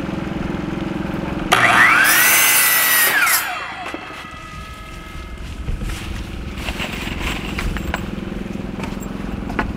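Electric power saw running, then cutting through a piece of wood for about two seconds, starting about a second and a half in. After the cut its whine fades as the blade winds down.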